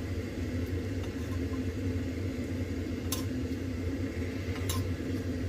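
A steady low appliance hum, with two light clinks about three and nearly five seconds in as a metal spoon ladles sauce into a ceramic bowl.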